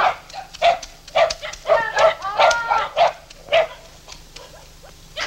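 Dog barking, a quick run of about nine short barks that stops about three and a half seconds in.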